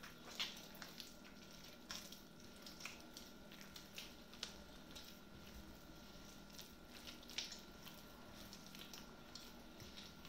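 Hands mixing and squeezing soft, wet pizza dough in a bowl: faint, irregular sticky clicks and wet sounds.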